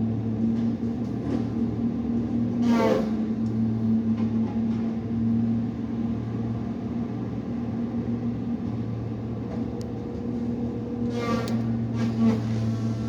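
Tree-cutting land-clearing machine's engine running steadily, with two brief squeals that fall quickly in pitch, one about three seconds in and one near the end.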